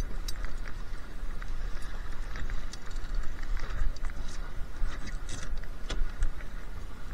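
Strong wind buffeting the microphone aboard a Laser 2 sailing dinghy in a breeze of about 23 knots, with a steady rush of water along the hull and scattered small clicks and rattles from the boat's fittings.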